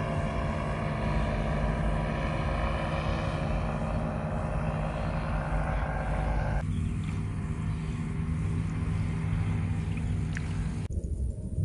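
Powered paraglider (paramotor) flying overhead, its engine and propeller running with a steady drone that holds its pitch.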